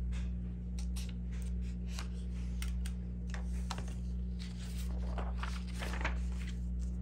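Paper rustling with light taps and clicks as a sheet on a clipboard is handled and flipped over, the rustle heaviest about five to six seconds in, over a steady low hum.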